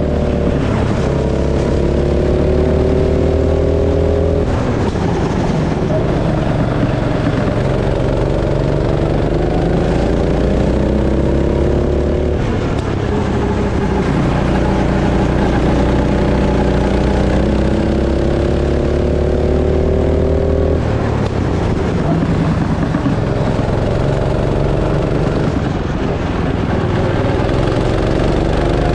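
Go-kart engine being driven hard: its pitch climbs steadily through four long pulls of several seconds each and drops back sharply between them as the kart slows for corners.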